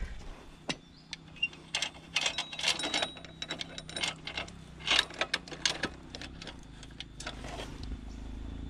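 Irregular mechanical clicks, knocks and rattles from a two-stroke trail motorcycle being handled, busiest in the first six seconds; a low steady hum comes in near the end.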